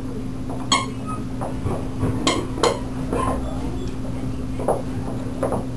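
Miniature schnauzer and chihuahua puppies scuffling at play: scattered sharp taps and clicks with a few louder knocks, over a steady low hum.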